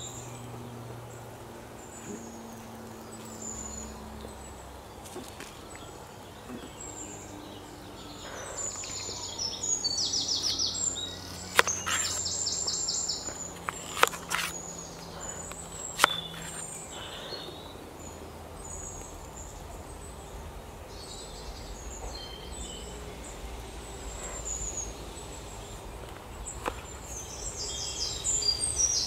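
Forest birds chirping and trilling throughout. About a third of the way in come three sharp knocks a couple of seconds apart: a cleaver chopping through an onion onto a wooden cutting board.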